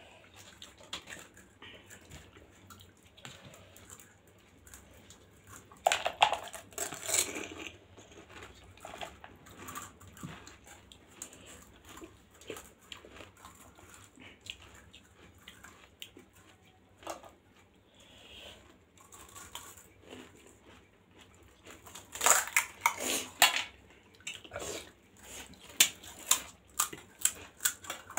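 Close-up eating of pani puri: crisp puri shells crunching as they are bitten, with wet chewing and a metal spoon clinking. There is a loud burst of crunching about six seconds in and another late on, with scattered sharp clicks between.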